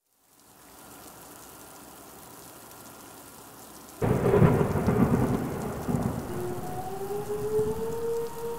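Synthesized storm ambience: steady rain fades in, and about four seconds in a loud thunder clap breaks into a rolling rumble. From about six seconds a Whelen outdoor warning siren starts winding up, its tone rising.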